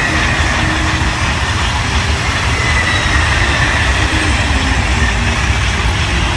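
Double-deck TGV high-speed train passing at speed: a steady rush of wheel and air noise with a faint whine that slowly falls in pitch as it runs away towards the tunnel.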